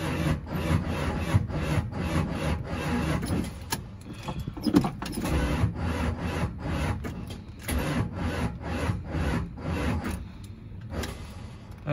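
1978 Plymouth Volare Super Coupe's engine being cranked over by the starter in an even rhythm of about three compression strokes a second, without firing, as it draws on gasoline poured down the carburetor after years of sitting. The cranking breaks off briefly near the end.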